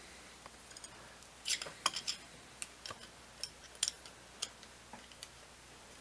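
Brass flare fittings and copper tubing handled and screwed together by hand: faint, irregular small metallic clicks and ticks, about a dozen, starting about a second and a half in.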